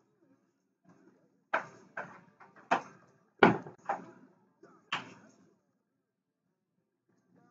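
A quick run of about six sharp knocks, each dying away quickly, spread over three or four seconds.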